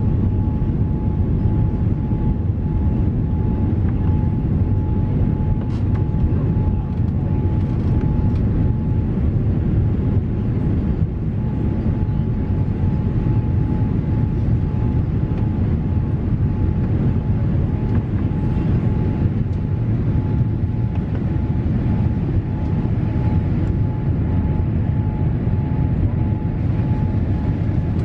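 Boeing 787-8 cabin noise during the climb-out: a steady low rumble of the jet engines and airflow, with a thin steady hum in the middle range.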